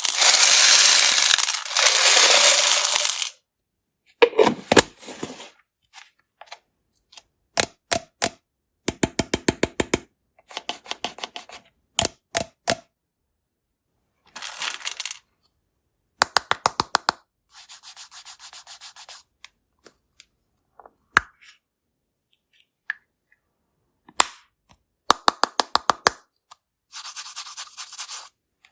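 Close-up clicking and crackling from candy and slime being handled: about three seconds of steady rushing noise, then a string of short separate bursts of rapid ticking and crackling, cut apart by silent gaps.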